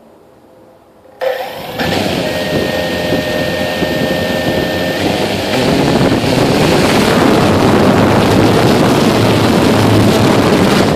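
Blade 350 QX quadcopter's electric motors starting up about a second in with a steady whine, then running hard for takeoff, the propeller wash rushing loudly over the microphone. The sound cuts off suddenly near the end.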